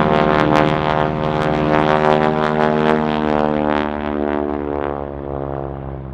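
Harvard trainer's nine-cylinder Pratt & Whitney R-1340 Wasp radial engine and propeller running hard on a low smoke-trailing pass. The pitch drops slightly and the sound fades over the last couple of seconds as the aircraft passes.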